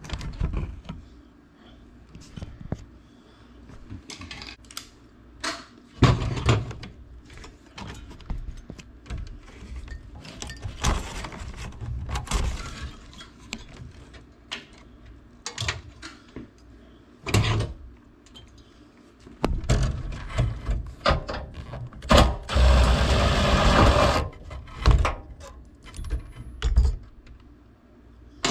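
Hand-work noises inside an air handler cabinet: irregular clanks, knocks and rattles of sheet metal, tools and wiring as the ECM blower motor is worked on. About three-quarters of the way through comes a louder rush of scraping noise lasting about two seconds.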